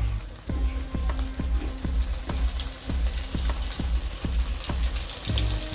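Besan-coated rohu fish frying in hot oil in a kadhai: a steady sizzle and crackle of bubbling oil. Background music with a regular low beat plays over it.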